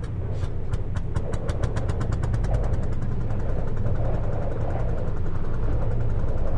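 Old tractor engine starting: separate firing beats, slow at first, quicken over the first two seconds into a steady fast idle, growing slowly louder.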